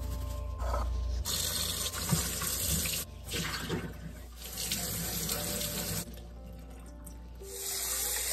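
Kitchen tap water running into a stainless steel sink as pieces of dried fish are rinsed in a wire strainer. The flow eases off about six seconds in and comes back near the end, filling a small saucepan.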